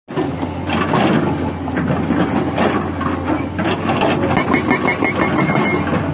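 Hydraulic rock breaker (SHS 81) on a JCB JS 215 excavator hammering its chisel into rock with rapid blows, over the steady running of the excavator's engine.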